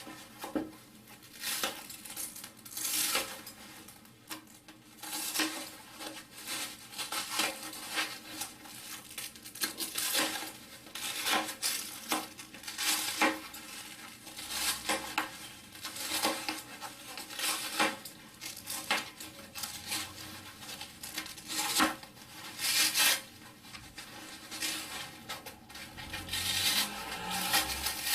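A foam sponge being cut by hand: a long run of irregular sharp snips and rustling tears, about one every second or two, with handling noise between them.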